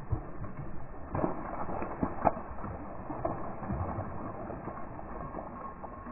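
Water splashing at the surface of a pond where a fishing line and lure are, heard as a few irregular splashes and sharp knocks.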